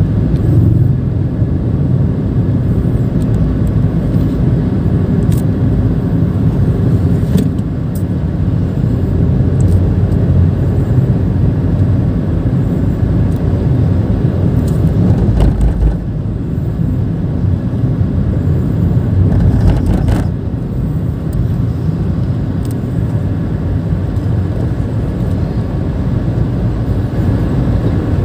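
Steady in-cabin rumble of a Nissan March 1.2 hatchback on the move, mostly engine and tyre noise, with a few short knocks along the way.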